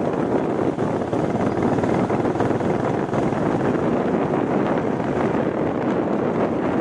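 Royal Enfield Bullet 350 single-cylinder motorcycle running steadily on the move, with wind buffeting the microphone.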